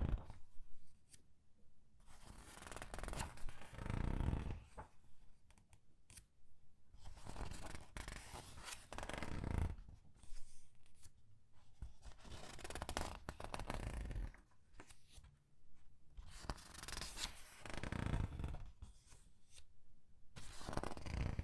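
Pages of a thin paper comic book being turned slowly one at a time, each turn a crinkly paper rustle as the page is squeezed, coming about every four seconds.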